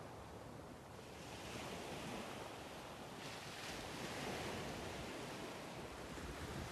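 Soft ocean waves washing in on a shoreline, a faint steady surf hiss that swells twice, about a second in and again about three seconds in.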